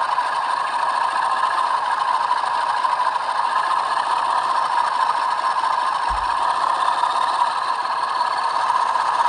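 Bachmann Class 47 model locomotive's sound decoder playing a diesel engine at maximum revs through its small onboard speaker: a steady drone with little bass. A brief low thump about six seconds in.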